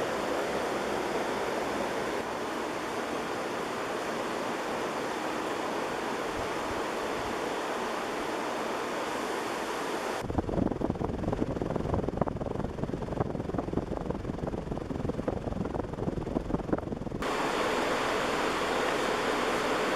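Large brass ceiling fan with shorter non-original blades running on high speed at a very high RPM, estimated at 300 or more: a steady rush of moving air. About ten seconds in, the air blast buffets the microphone with gusty rumbling for roughly seven seconds, then the steady rush returns.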